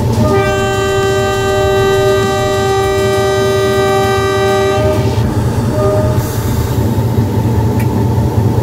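Train air horn sounding one long blast of several notes together for about five seconds, then a short toot about a second later, over the steady low rumble of a train.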